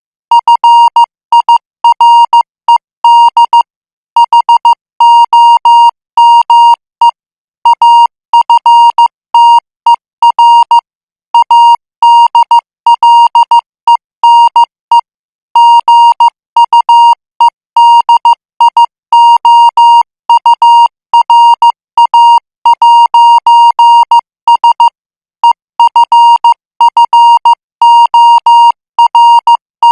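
International Morse code keyed at 14 words per minute: a single beeping tone of about 1 kHz switched on and off in short dots and longer dashes, grouped into characters separated by brief pauses.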